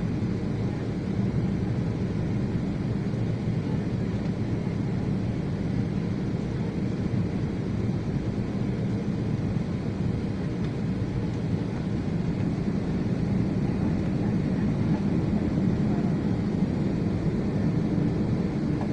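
Steady, even cabin noise of a Boeing 737 jetliner on final approach, the engine drone and rushing air heard from inside the cabin as it descends low over the runway just before touchdown.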